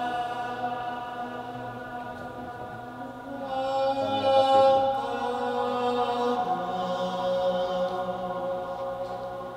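Droning, chant-like music of long held tones with rich overtones. It swells about four seconds in, and a lower note takes over about six and a half seconds in.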